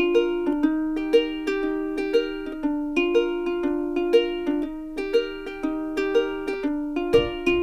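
Background music: a bright plucked-string melody with a steady beat, notes about twice a second, and a low bass line joining near the end.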